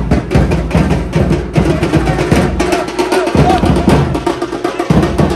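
Loud drum and percussion music: a steady rhythm of sharp strikes over a heavy low drum.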